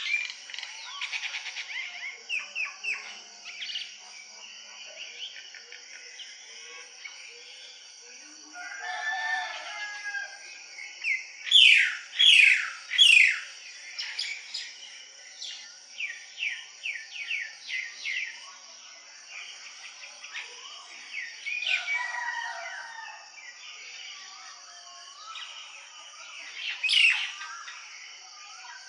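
Village morning bird chorus: many small birds chirping and calling in quick sweeping notes, loudest in three sharp calls a little past the middle. A rooster crows twice, about a third of the way in and again past the two-thirds mark. A steady high-pitched drone runs underneath.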